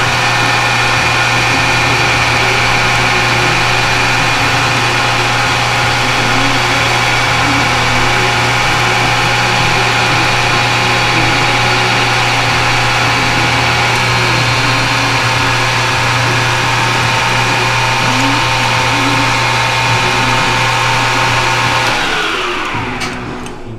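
Lathe running at a steady speed with a strong low hum, then switched off about two seconds before the end and coasting down, its pitch falling as it slows.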